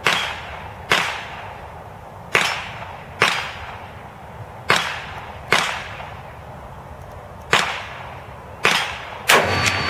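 Gunshots at a shooting range: about nine sharp reports at irregular intervals, each with a short echo tail.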